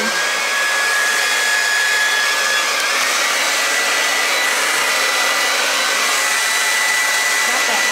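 Revlon hand-held hair dryer running loud and steady, a rush of air over a thin motor whine, on its medium setting. About three seconds in, the whine steps up in pitch as the motor goes to a faster speed.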